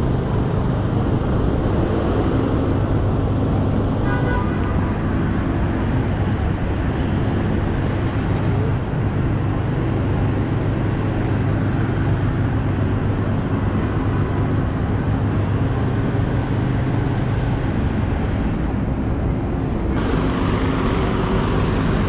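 Steady city street traffic noise: a continuous low rumble of cars and buses, with a short pitched sound about four seconds in.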